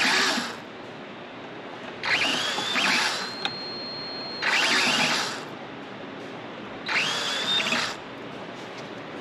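Cordless drill run in short bursts: one ending just at the start, then three more about two seconds apart, each spinning up and winding down. Its bit is going back through rivet holes in a thin metal strip to open them up for pull rivets that were too tight to go through.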